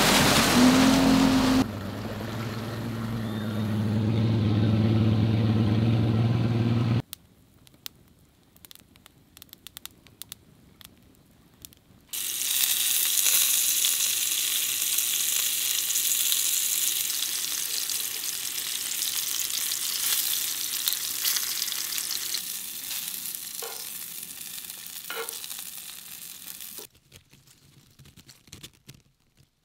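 A boat motor running under the sound of water for the first few seconds. Then, about twelve seconds in, breaded smallmouth bass fillets start sizzling in hot oil in a cast-iron pan, a steady frying hiss for about fifteen seconds.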